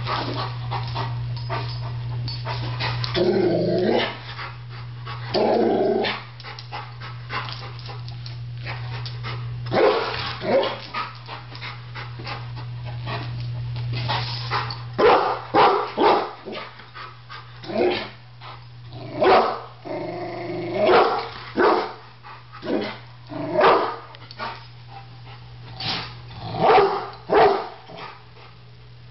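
A Rottweiler growling and barking at a small kettle grill that it takes for a threat: a couple of drawn-out growls at first, then short single barks again and again from about halfway.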